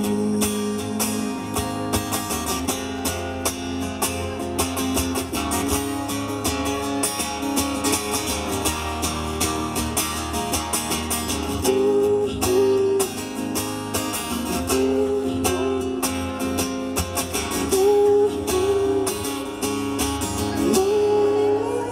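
Acoustic guitar strummed steadily in an instrumental passage after the song's last sung line, playing the closing bars of the song.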